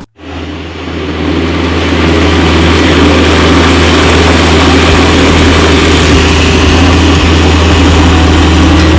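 Electric mixer grinder (blender) running at full speed, a loud steady motor hum with a hiss over it. The motor spins up over about the first second.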